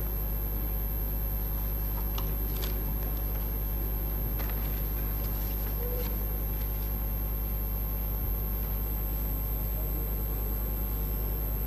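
Steady low electrical hum and room tone from an open microphone feed, with a few faint clicks.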